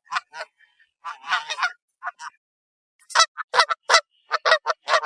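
Canada geese honking: a few scattered honks, then from about three seconds in a quick, even run of honks at about four a second.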